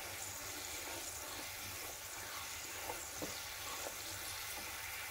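Tamarind-and-jaggery chutney boiling in a kadai over a high gas flame, a steady bubbling sizzle with a few faint pops, as it thickens.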